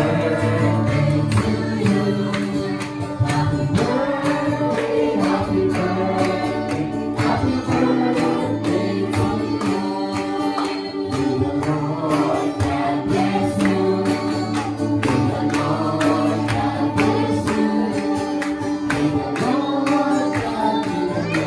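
A group of people singing together over accompanying music with a steady beat, in the style of a church worship song.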